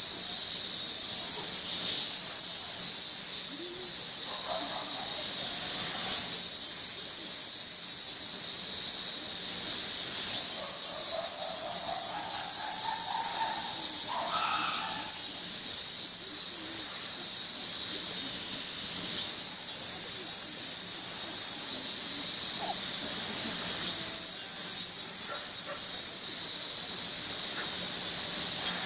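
A dense chorus of cicadas buzzing steadily at a high pitch, with a fast pulsing shimmer.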